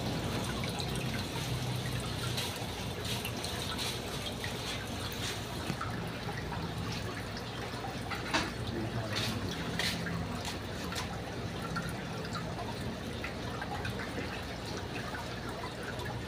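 Water trickling and dripping in a large aquarium, over a steady low hum and scattered faint clicks.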